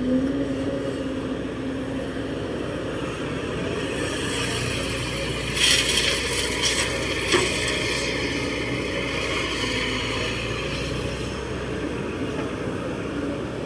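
Kobelco SK200-8 hydraulic excavator's diesel engine running steadily under load as it digs and swings. About six seconds in, a bucketful of soil pours into the dump truck's bed with a rattling rush, and a sharp knock follows a second or so later.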